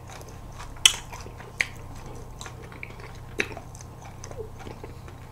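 Crunchy biting and chewing of chocolate-and-cookie-crumb-coated Dwaeji Bar ice cream bars. Three sharper crunches stand out: about a second in, near a second and a half, and about three and a half seconds in.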